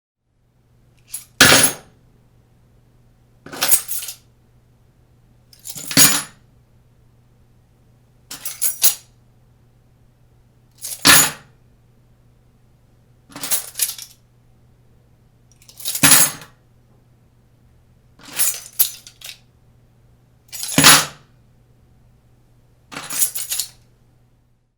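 A bunch of keys set down on a surface ten times, about every two and a half seconds, each a short jingling clatter of a few metal clinks.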